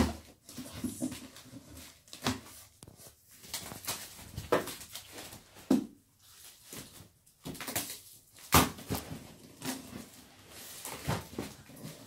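Cardboard delivery box being opened and handled: irregular knocks, scrapes and rustles as its flaps are pulled open and the box is pushed about, the sharpest knock about eight and a half seconds in. A few short vocal sounds come between them.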